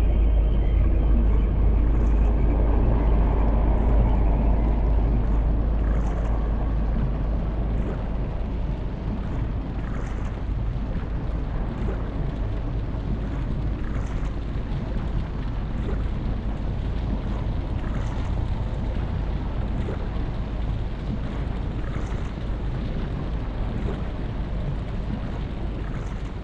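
Deep, steady rumbling ambience of a boiling, bubbling sea, with faint high ticks about every two seconds, slowly getting quieter toward the end.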